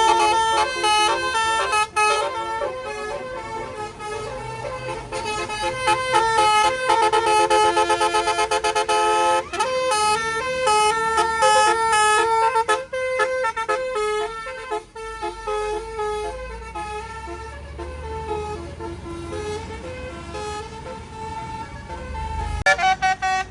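Tour bus's multi-tone telolet basuri horn playing a melody of quickly stepping notes, tune after tune. A low rumble runs underneath in the second half.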